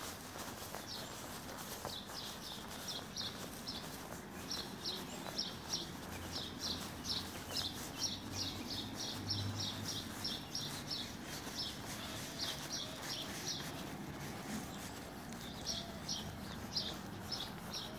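A small bird chirping: quick, short, high notes repeated several a second in bouts, with brief breaks between runs. A faint steady outdoor background noise sits beneath.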